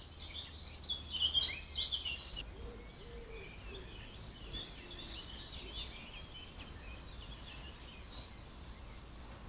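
Several small songbirds singing and chirping at once, busiest in the first couple of seconds and then in scattered short calls, over a faint low steady hum.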